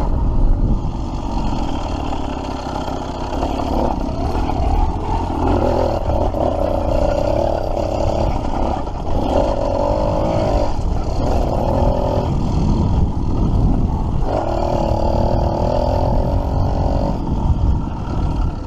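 Two-stroke bicycle engine kit on a motorized bike running under throttle through a flexible expansion-chamber exhaust. The engine note rises and falls several times as the throttle opens and eases off, and the sound drops away right at the end.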